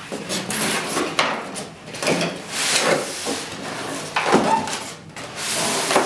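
Large cardboard box being opened by hand: flaps folded back and the foam packaging tray scraped and slid out against the cardboard, a run of irregular scrapes, rustles and knocks with a smoother sliding rush near the end.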